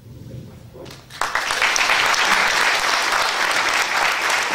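Audience clapping in a lecture hall, breaking out suddenly about a second in and carrying on at a steady, even level.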